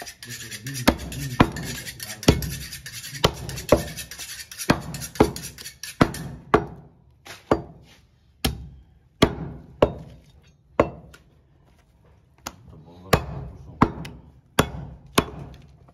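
Butcher's cleaver chopping goat meat on a round wooden chopping block: about twenty sharp chops, one or two a second. A steady hiss runs behind the first strokes and cuts off about six seconds in.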